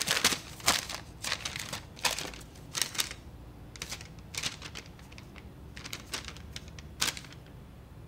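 A run of irregular sharp clicks and crackles, a few each second, that stops about seven seconds in.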